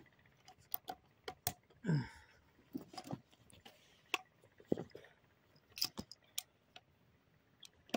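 Scattered light metallic clicks and rattles of a 12-gauge pump-action shotgun being handled and readied for a shot.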